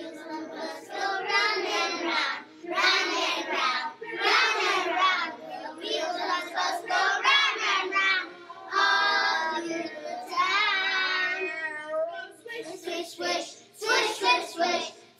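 Young children's voices singing a song, with long held notes that waver in pitch, turning to shorter, choppier syllables near the end.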